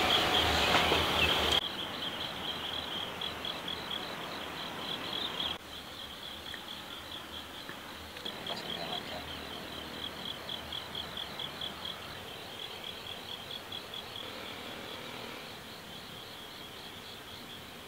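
Insects chirping in a steady high trill that pulses about three times a second.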